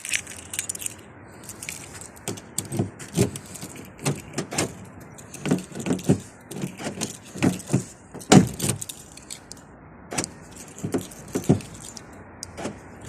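Car keys jangling and clicking as they are handled, with irregular taps and knocks scattered throughout.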